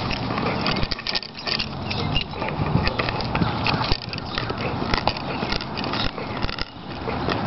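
Brittany gnawing on a large wooden stick: irregular cracking and scraping of teeth on wood, over a steady low background rumble.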